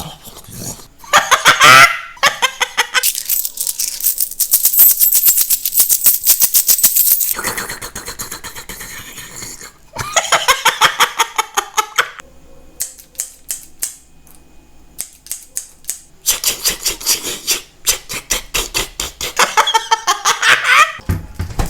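A man making sound imitations with his mouth and voice: runs of rapid clicking and short cries that glide in pitch, with a fowl-like quality.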